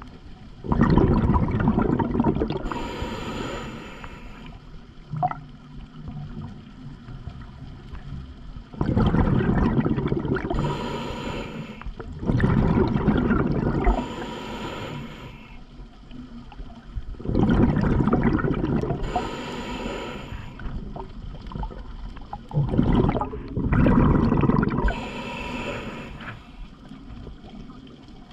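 Scuba diver breathing underwater through a regulator: a loud rush of exhaled bubbles comes about every six or seven seconds, with quieter breathing sounds between.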